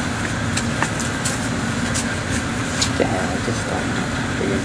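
Steady low background noise, with faint voices about three seconds in and scattered sharp clicks.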